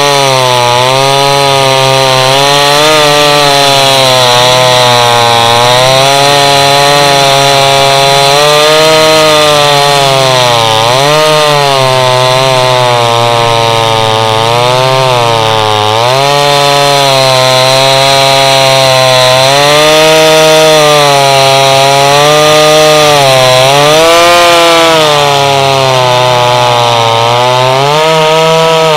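A 5200 two-stroke chainsaw running at high throttle while cutting through a log, its engine pitch dipping and recovering again and again as the chain bogs in the wood and frees up.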